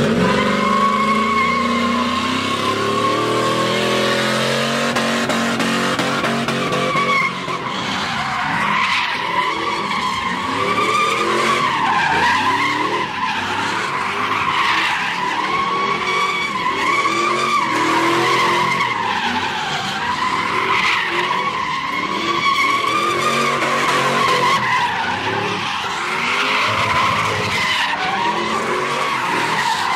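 Cars doing donuts: tyres squealing in a long, continuous wail that wavers up and down in pitch, over engines revving hard.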